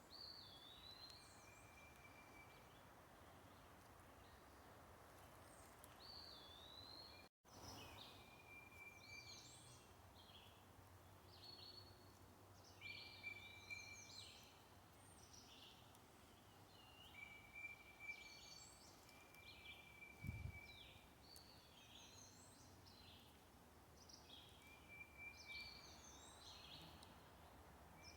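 Songbirds calling over and over, short whistled notes, some held on one pitch and some sweeping, above a faint steady hiss. A brief low thump comes about twenty seconds in.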